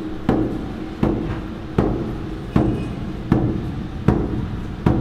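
Handheld frame drum struck in a slow, steady beat, about seven strokes, each followed by a short low ring.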